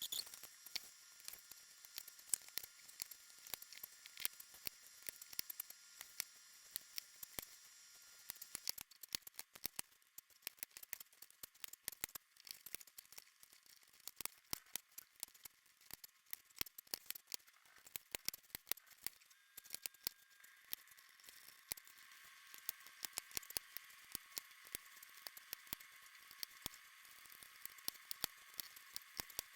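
Clicky keys of a Logitech G915 mechanical keyboard clicking irregularly, several sharp clicks a second, thin and without low end.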